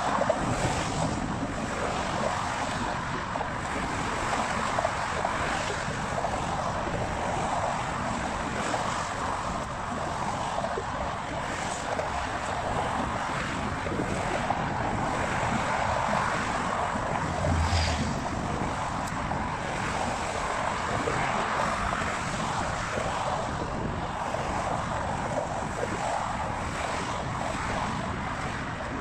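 Steady rush of car traffic passing close by, mixed with wind blowing across the microphone, with a brief low thump about 18 seconds in.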